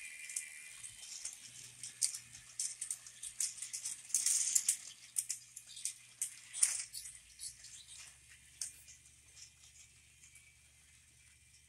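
Battery-powered toy train pulling a line of plastic freight cars around plastic track: a stream of light clicks and rattles, busiest about four to five seconds in, then thinning out and fading near the end.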